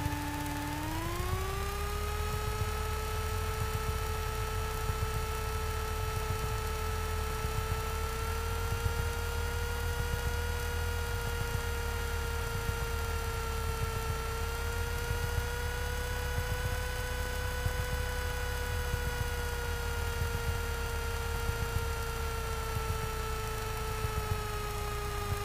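Piper Warrior's four-cylinder Lycoming engine heard through the headset intercom feed while taxiing: a steady whine over a low rumble. The pitch rises about a second in as power comes up, then holds with slight wavering.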